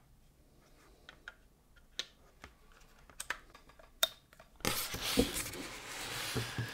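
Scattered light plastic clicks and taps as a power plug and adapter are handled and plugged in. In the last two seconds comes a rustling, scraping noise with a few knocks as the metal-and-plastic desk lamp is moved and set down on the desk.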